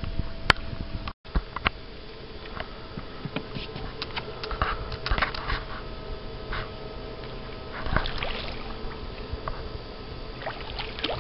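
Water splashing and sloshing as a hooked striped bass is reeled up to the side of the boat, with scattered light clicks and a faint steady hum underneath. The sound drops out briefly about a second in.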